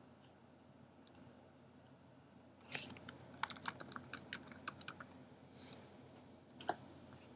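Faint typing on a computer keyboard: a quick run of about a dozen keystrokes over roughly two seconds, entering a password. There is a single click about a second in and another near the end.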